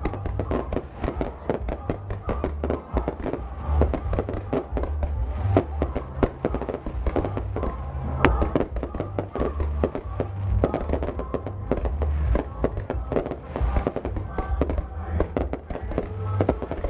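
Fireworks display: a dense, continuous run of bangs and crackling over deep booming, with one sharper crack about halfway through.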